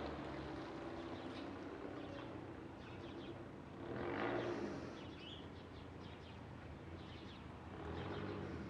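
Turbocharged 2.4-litre four-cylinder engine of a PT Cruiser GT with a MagnaFlow cat-back exhaust, running steadily at low revs, with a brief swell about four seconds in and a smaller one near the end.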